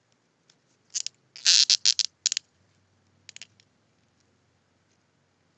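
Plastic wrapping crinkling and rustling as it is handled, in a cluster of short bursts a second or so in and a smaller burst a little later.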